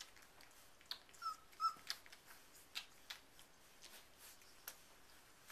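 Airedale puppy giving two short, high whimpering squeaks a little past a second in, while the litter nurses, with soft scattered clicks.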